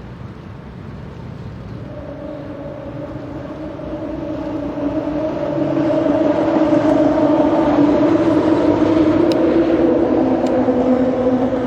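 Boat engine running under way, a steady hum that grows louder about five seconds in, then eases down a little in pitch near the end.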